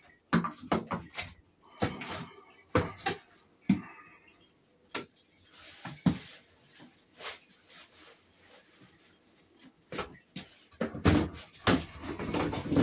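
Irregular knocks and clatter of tools or hardware being handled and set down, with a denser run of bumps near the end.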